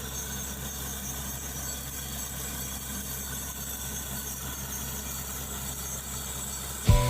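Drilling rig's engine idling steadily as a low hum. Just before the end a sudden, much louder sound with heavy thumps breaks in.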